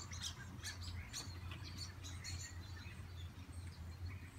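Small birds chirping over and over in short high calls, with a low steady hum underneath.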